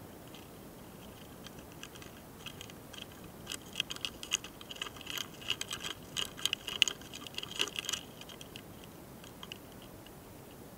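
A mating pair of small longhorn beetles heard very close up: irregular dry clicks and ticks as they move and grip on the twig. The clicks are sparse at first, come in a dense rapid flurry from about a third of the way in to about three quarters through, then thin out again.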